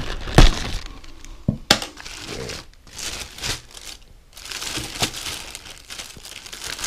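Plastic packaging bags crinkling as they are handled in a cardboard box. There is a sharp thump about half a second in and a couple of clicks a second later.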